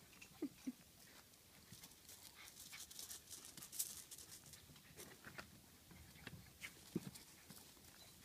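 Faint scattered clicks and scuffs of puppies moving about, with two short, faint squeaks about half a second in and another near seven seconds.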